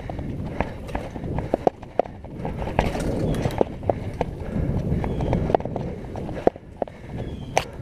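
Mountain bike rolling fast down a wet dirt singletrack: a steady rumble of tyres on the ground, with irregular sharp clacks as the bike rattles over bumps and roots.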